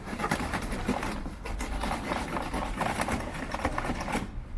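Stiff, glue-hardened paper being handled and worked, with dense rapid crackling and rustling over a low rumble.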